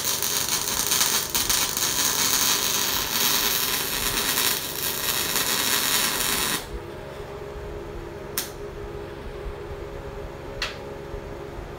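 MIG welding arc on an Everlast Lightning MTS 275, crackling and hissing steadily for about six and a half seconds, then cutting off abruptly when the trigger is released. The welder judges that the wire feed was skipping during this bead. After the arc stops there is a faint steady hum and two sharp clicks.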